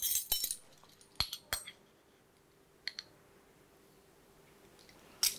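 A ring of metal measuring spoons clinking and jangling: several sharp clicks in the first two seconds and one more near three seconds, then a jangle again at the very end.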